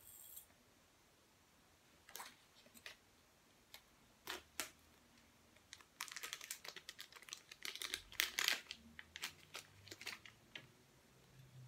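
Irregular small clicks and taps, in a dense quick flurry a little past the middle, like typing.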